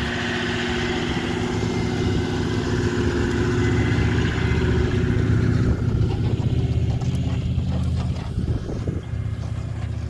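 Toyota LandCruiser 70-series four-wheel drive's engine pulling a caravan through soft sand, getting louder as it comes close past, peaking about halfway through and then easing off.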